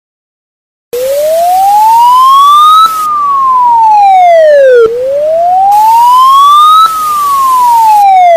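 Emergency alert siren in a slow wail. A single tone sweeps up over about two seconds and back down over about two seconds, twice. It starts about a second in, after a moment of silence.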